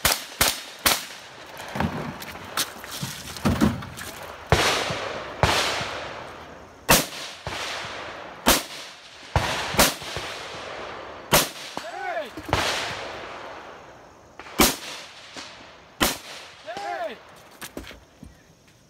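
Gunshots from a competitor firing a 3-gun stage: a quick string of shots about half a second apart, then single shots every one to two seconds, each followed by a long echo.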